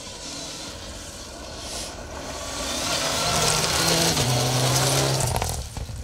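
Mitsubishi Lancer Evolution VI rally car passing at speed on a gravel stage, its turbocharged four-cylinder engine growing louder as it approaches, over the hiss of gravel thrown up by the tyres. The engine note drops in pitch about four seconds in as the car goes by, and the sound falls away sharply near the end as it goes behind trees.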